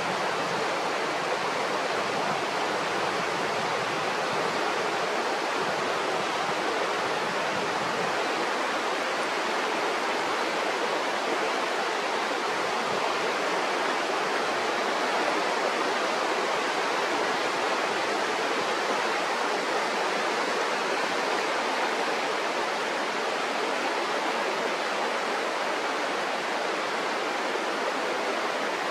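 Mountain river water rushing with a steady, even hiss that does not change.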